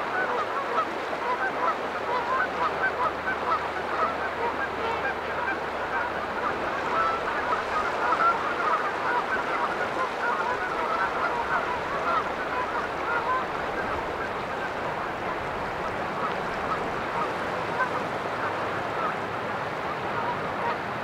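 A flock of geese honking: many short calls overlapping in a steady chatter, busiest in the first half and thinning out later.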